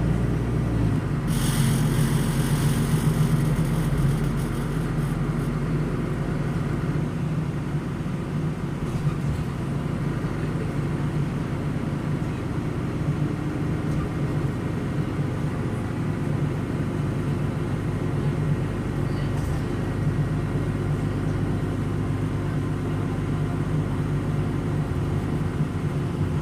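DAF inline six-cylinder turbo diesel of a Solaris Urbino 12 LE city bus running with a steady low drone. Its note steps down about a second in, while a burst of hissing sounds for a few seconds.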